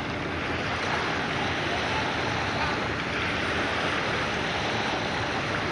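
Steady rushing noise of wind on the microphone and water, as a twin-engine seaplane runs through the water throwing spray from its hull; no distinct engine note stands out.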